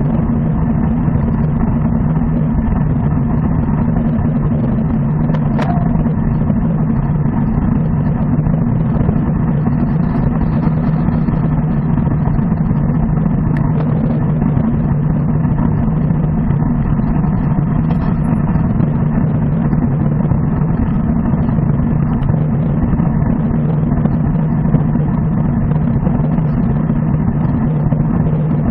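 Steady wind and road rumble picked up by a bicycle-mounted camera riding at about 40 km/h, with a faint tick twice.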